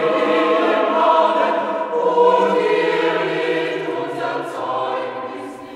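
Choir singing long held chords, fading out over the last couple of seconds.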